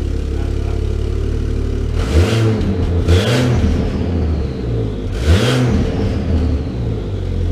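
Ford FG Falcon XR6 Turbo's turbocharged inline-six idling through a Varex valved muffler, revved twice, about two and five seconds in, the revs rising and falling back to idle each time, with short hissing bursts at the blips.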